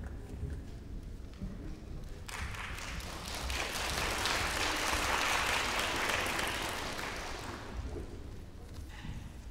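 Audience applauding. The applause starts about two seconds in, swells, and fades away near the end.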